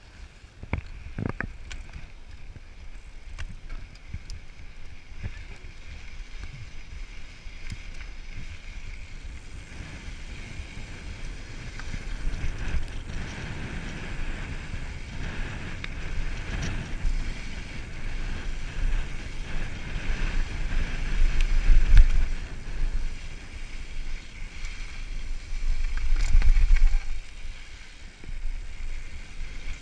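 Wind rumbling over the camera microphone together with mountain bike tyres running over a dirt singletrack and the bike rattling over bumps. It grows louder as the ride picks up speed downhill, with gusty surges about two-thirds of the way through and again near the end.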